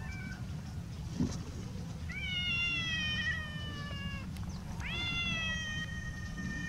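Siberian farm cat meowing: a short chirp, then two long drawn-out meows, each rising sharply and then slowly sagging in pitch.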